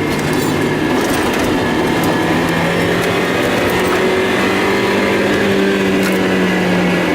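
Mazda Miata's four-cylinder engine running steadily, its tone holding nearly level with only a slight rise in pitch about two seconds in.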